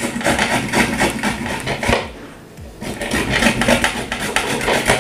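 Piece of radish being rubbed quickly on a flat metal hand grater over a ceramic plate: rapid rasping strokes, with a short pause about two seconds in.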